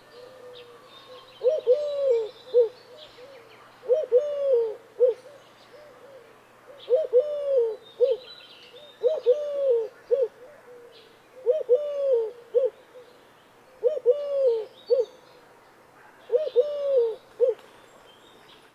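A dove cooing: a repeated three-note phrase, one longer arched coo between two short ones, seven times in a row about every two and a half seconds. Faint high chirps of small birds sound in the background.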